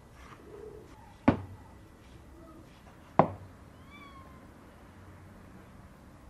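Two sharp knocks about two seconds apart on a wooden cutting board while a rack of ox ribs is butchered with a long knife. A short, high animal call falls slightly in pitch about four seconds in.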